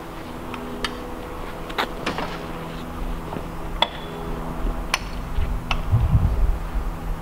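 Metal clicks and clanks from the ironwork of a hand-worked wooden railway level-crossing gate as its latch is worked and the gate is freed, about six separate knocks, over a steady low hum, with a low rumble about six seconds in.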